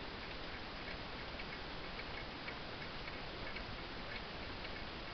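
Dugena pendulum wall clock ticking steadily, with faint, evenly spaced ticks over background hiss.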